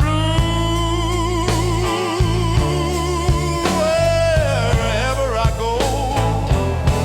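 Chicago-style blues song in an instrumental passage: a lead line with wide vibrato over a steady bass and a drum beat.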